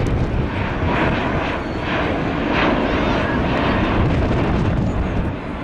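Airbus A380 airliner passing low overhead with its landing gear down, its four Rolls-Royce Trent 900 turbofan engines giving a steady jet rumble and rushing hiss. The sound is loudest about halfway through and eases slightly near the end.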